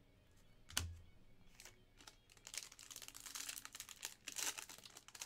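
A single sharp knock on the table, then the foil wrapper of a trading-card pack crinkling and tearing as it is handled and opened.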